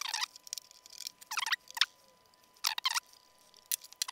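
Plastic squeaking and creaking in about five short bursts as a plastic front bezel frame is worked off a CD-RW drive's metal chassis.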